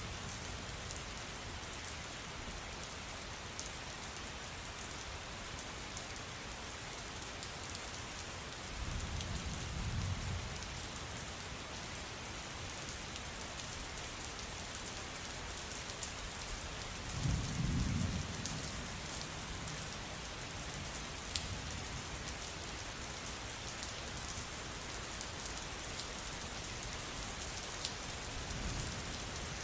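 Steady rain falling, with low rolls of thunder three times: a soft one about a third of the way in, the loudest just past halfway, and another beginning at the very end.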